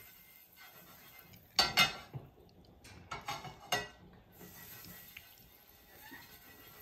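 Crepe pans and utensils clanking and clinking on a gas stove: a quick pair of loud knocks about one and a half seconds in, then a few lighter clinks around three to four seconds.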